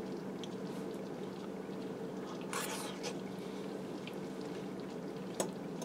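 Quiet, steady low hum of a kitchen, with a soft breathy rush about two and a half seconds in and one light click of a fork against a plate near the end.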